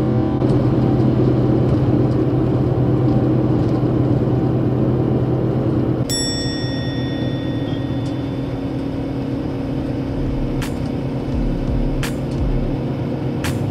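Coach bus engine running under way, heard from inside the passenger cabin, with steady road rumble. A short ringing tone sounds about six seconds in and fades, and a few sharp clicks come near the end.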